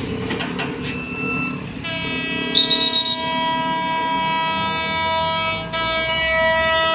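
Train passing with a low rumble, then a locomotive horn sounding a long, steady blast from about two seconds in, broken briefly near the end. A short, loud, rapidly fluttering high whistle cuts in around the three-second mark.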